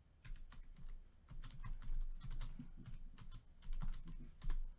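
An irregular run of light, sharp clicks and taps, a few a second, with soft low thumps underneath.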